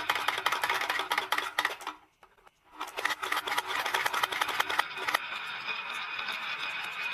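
Marbles running down a wooden HABA marble run, clicking and clattering rapidly. There is a short silence about two seconds in, then more clicking until about five seconds in, followed by a steady rolling rumble.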